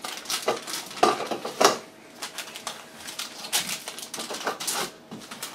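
Foil milk sachets crinkling and rustling as they are handled and put back into a cardboard canister, with small plastic clicks and clatter. An irregular run of crackles and knocks, the loudest two clacks about a second and a second and a half in.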